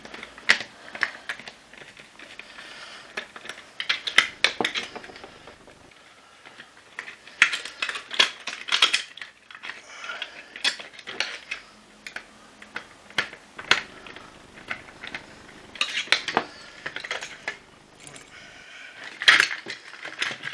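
Hard plastic parts of a vacuum cleaner floor head and a hand screwdriver clicking and clattering as screws are undone and parts are handled and lifted out. The sharp clicks come in clusters every few seconds.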